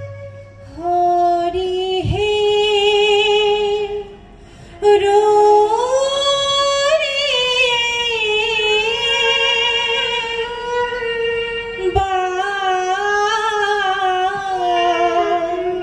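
A solo voice singing the accompanying song of a Sattriya-style dance-drama, holding long wavering notes that glide slowly up and down, with a short pause about four seconds in.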